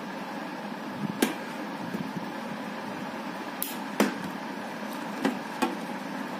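Sharp plastic clicks, about five of them spread over several seconds, the one in the middle loudest, as the clear visor of a Vega full-face off-road helmet is fitted and snapped onto its side pivot mount.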